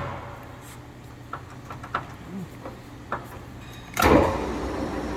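Mori Seiki engine lathe: a few sharp clicks from its controls over a low hum, then about four seconds in the spindle drive engages with a loud clunk and runs on steadily, switched to turn in reverse.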